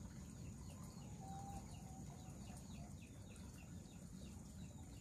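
Faint outdoor ambience: rapid, evenly repeated short chirps, a steady high-pitched buzz, and a short distant call about a second in.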